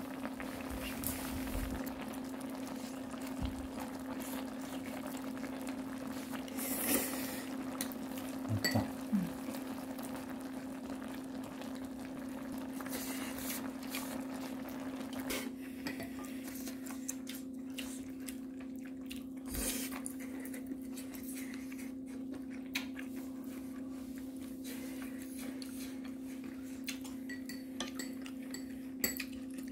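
A pot of budae-jjigae (Korean army stew) bubbling at a simmer, with a crackle of popping bubbles and a few sharp clicks and knocks, over a steady low hum.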